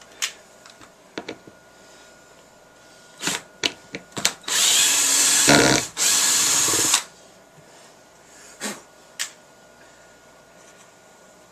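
Power drill driving a screw into a pine board in two runs, the first about a second and a half long, then a short pause and a second run of about a second. A few clicks and knocks of handling come before and after.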